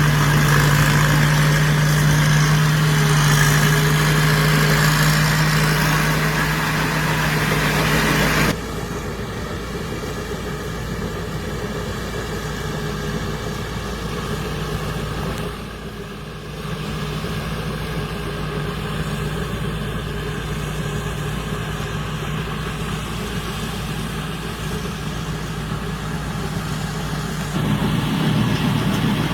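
Combine harvester engine running steadily at idle, a low hum that drops abruptly to a quieter level about a third of the way in and grows louder again near the end.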